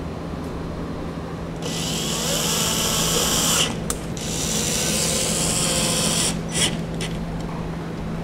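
Cordless drill driving in the taillight mounting screws: two runs of about two seconds each, with a short pause between them.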